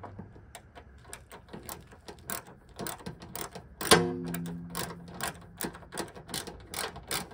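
Socket ratchet clicking in short uneven runs as a hood hinge bolt is driven in by hand, with one louder click about four seconds in.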